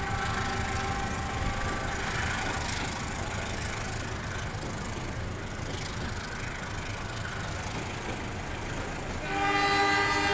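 Passenger coaches of a KAI train rolling past on the rails, a steady rumble of wheels on track. A little over nine seconds in, a train horn blows, the loudest sound, still sounding at the end.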